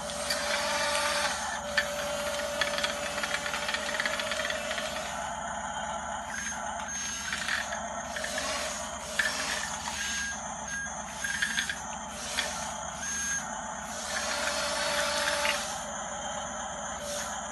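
Small electric motors of a toy RC bulldozer whining steadily, with a dense rattle and scrape of its tracks and blade shoving loose candies, and a few sharp clicks and short beeps.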